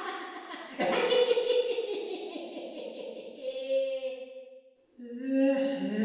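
Creepy clown laugh, a performed horror-style cackle that starts just under a second in and trails off, fading almost to silence nearly five seconds in before another laugh begins.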